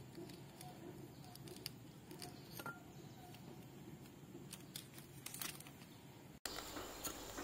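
Faint scattered ticks and light crunching of salt as the cut end of a plantain is pressed into it on a plate. About a second before the end the background switches abruptly to a louder steady hiss.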